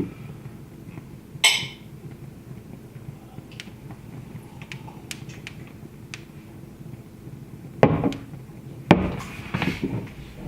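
Wood fire crackling, with scattered sharp pops and two louder knocks near the end followed by a burst of smaller crackles.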